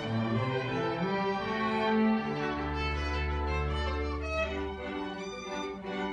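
A string orchestra of violins, cellos and double bass playing, with bowed notes held and changing every second or so. A long low note is held underneath for a couple of seconds in the middle.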